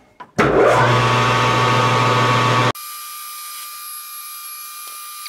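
Metal lathe starting up and running, its spindle and chuck turning, with a steady low hum. About two and a half seconds in the sound drops suddenly to a quieter, steady high-pitched whine.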